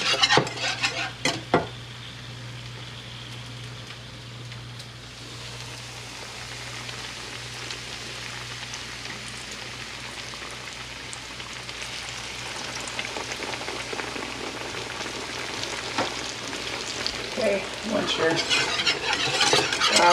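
Flour frying in hot grease in a cast-iron skillet, a steady sizzle that slowly grows louder: the start of a roux for gravy. A utensil clinks in the first two seconds, and stirring clatters near the end.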